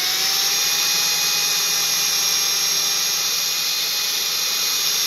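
Cordless drill with a 5/64-inch bit running at a steady high whine, drilling out a rivet on a Hot Wheels die-cast car.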